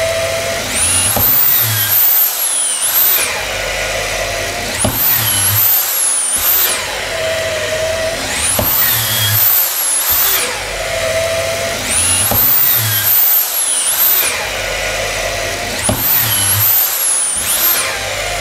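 Cordless drill boring a row of holes through a 2-inch-thick sawn timber joist with a 22 mm Irwin 6X tri-flute auger bit. The drill's whine climbs and falls about five times, once for each hole, every three to four seconds.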